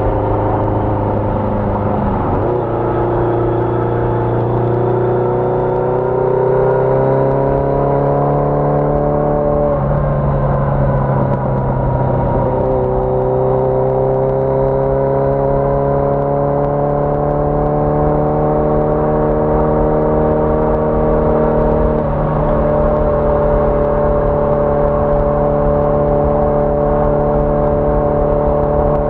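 1981 Yamaha XJ650 Maxim's air-cooled inline-four engine pulling under acceleration, shifting up about two seconds in and again about ten seconds in, then building revs slowly and settling to a steady cruise.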